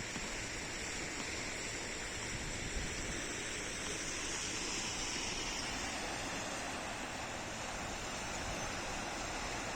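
Rain-swollen river water rushing steadily.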